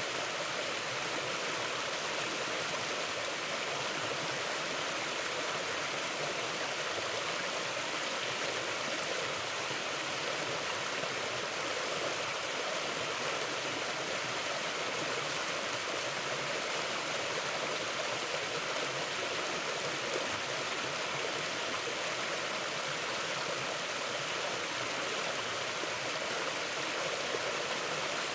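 Mountain river flowing steadily: an even, unbroken rushing of water.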